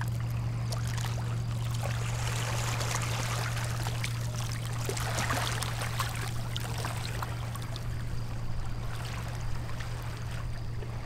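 Snake River water running and lapping at the bank, with scattered small splashes and clicks, over a steady low hum.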